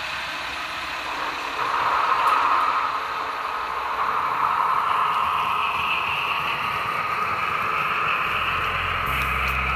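Märklin HO-scale model train running past on the layout's track, a steady rolling and motor noise that swells about two seconds in. Music begins near the end.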